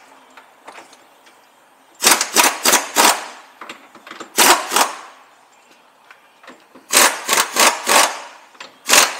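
Tool work in three bursts of rapid sharp knocks, about four or five a second, beginning about two seconds in.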